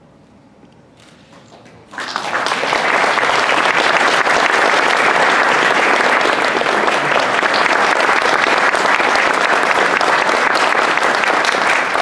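An audience applauding, starting suddenly about two seconds in after quiet room tone, then holding steady and dense.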